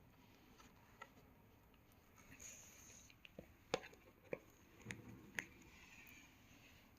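Light taps and clicks, about six of them at uneven intervals, the sharpest about four seconds in, over a quiet room.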